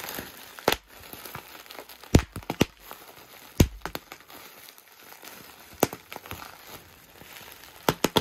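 Plastic bubble wrap crinkling and rustling as hands pull it open and off a car spoiler, with several sharp snaps scattered through.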